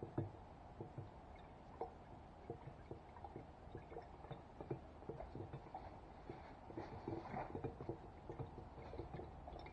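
Paintbrush being stirred in a glass jar of water to rinse out water-based paint: faint swishing of water with scattered light ticks.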